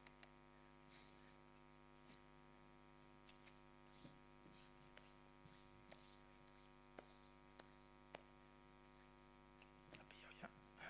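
Near silence: a steady electrical mains hum in the sound system, with a few faint scattered clicks.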